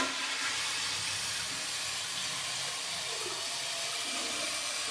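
1998 Eljer Patriot 1.6-gallon toilet flushing, water rushing and hissing steadily through the open tank.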